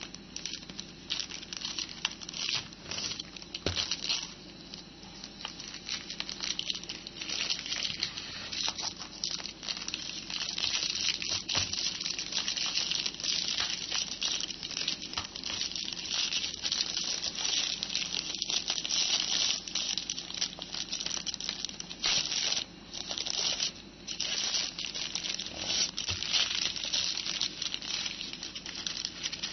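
Thin clear polyethylene bag around a compact keyboard crinkling and crackling continuously as it is handled and pulled at.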